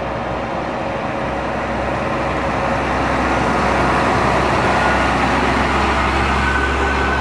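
Heavy truck driving past close by: a low, steady diesel engine hum with road noise, growing louder over the first few seconds and then holding steady.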